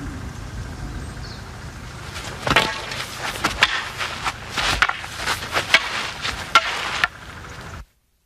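A series of irregular sharp wooden knocks and thuds from a six-foot staff (rokushaku bō) in use, about a dozen over four seconds, beginning about two and a half seconds in. The sound cuts off suddenly near the end.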